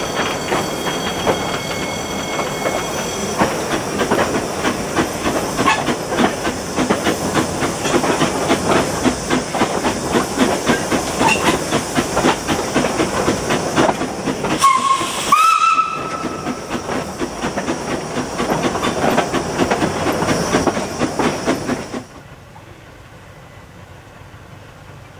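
Narrow-gauge Corpet-Louvet 0-4-0 steam tank locomotive running, heard close by: steam hissing over a quick, even beat. About fifteen seconds in it gives a short whistle blast that rises in pitch. A little past twenty seconds the sound falls off sharply to a much quieter, distant train.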